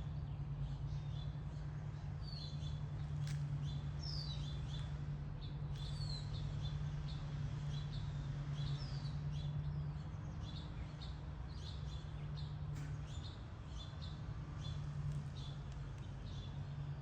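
Small birds chirping over and over: short high chirps and a few quick falling notes, over a steady low hum.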